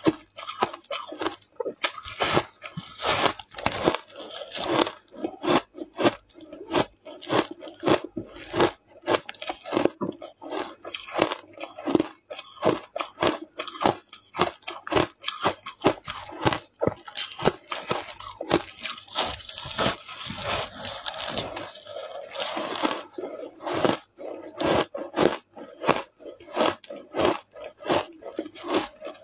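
Close-up crunching of matcha-powdered frozen ice being bitten and chewed, a continuous run of crisp crunches about two or three a second.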